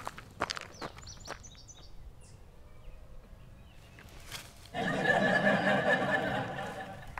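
Running footsteps crunching on a gravel trail fade out in the first second or so. About five seconds in comes a sudden, loud rustling of leafy bush branches that lasts around two seconds.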